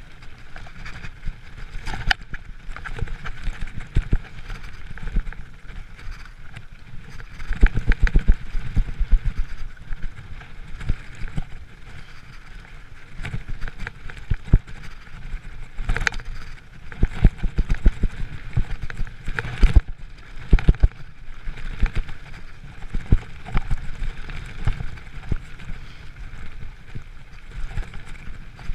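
Giant mountain bike riding fast down a dirt trail: steady tyre rumble with frequent knocks and rattles from the bike over bumps, heaviest on rougher stretches about eight, sixteen and twenty seconds in.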